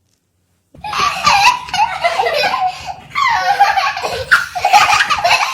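Baby laughing hard, starting suddenly about a second in: two long, breathy bouts of belly laughter with a short break between them.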